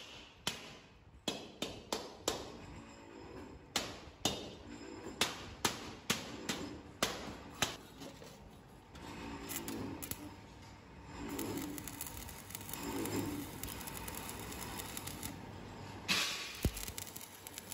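Sharp metal knocks of a hammer striking a steel end cap as it is driven into a cylindrical steel tank shell, irregular blows about one or two a second. Near the end an electric arc welder strikes on the seam with a short hiss and crackle.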